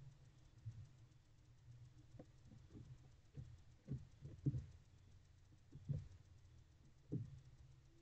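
Barn owl moving about in a wooden nest box: a scattered series of soft, low knocks and scuffs from its feet and body, most of them in the middle of the stretch.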